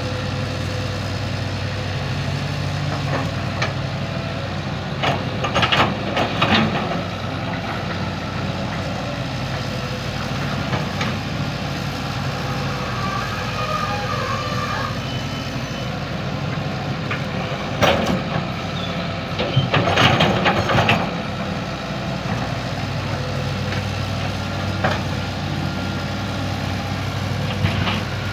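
Hitachi hydraulic excavator's diesel engine running steadily, with a few short loud clanks and knocks from the machine at work, the loudest about six, eighteen and twenty seconds in.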